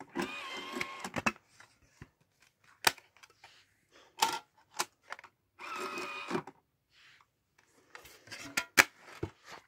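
DVD drive's tray motoring open with a whir, several sharp clicks as a disc is set onto the tray, then the tray motoring shut about six seconds in. More sharp clicks follow near the end.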